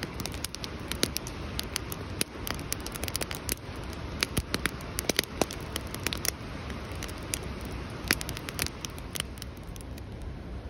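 Wood campfire crackling, with irregular sharp pops and snaps scattered throughout.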